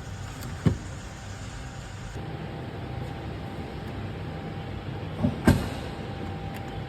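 Two sharp knocks about five seconds apart, the second with a lighter one just before it, over a steady low hum.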